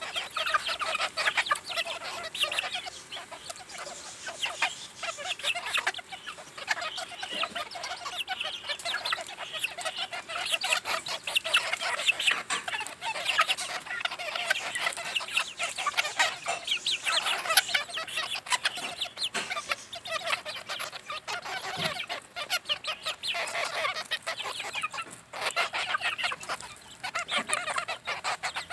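A flock of hens clucking continuously while feeding in a tight group, many short overlapping calls, with frequent quick taps of beaks pecking at the ground and at a piece of steak.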